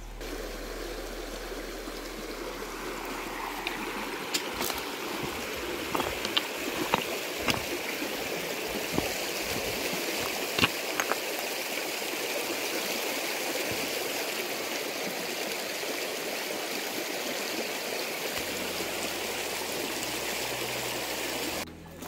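Water of a rocky stream above a waterfall rushing steadily, growing louder over the first few seconds. A few sharp clicks sound in the middle, and the sound cuts off suddenly near the end.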